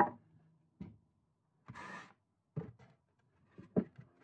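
Engine crankcase being handled and set onto a polystyrene block on a wooden bench: a sharp knock at the start, a few scattered knocks, and a short rubbing scrape about two seconds in.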